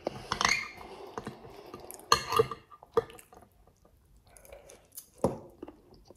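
Someone eating with a metal fork from a glass dish: a few short clinks and scrapes of the fork on the glass, with wet chewing and mouth sounds between them.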